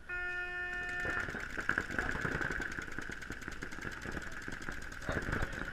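A start horn sounds for about a second. Then paintball markers open fire in rapid strings of shots, many a second, as the point begins.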